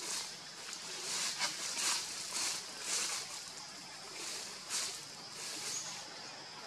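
Outdoor forest ambience: a high hiss that pulses about twice a second over a steady background, with a brief thin high tone near the end.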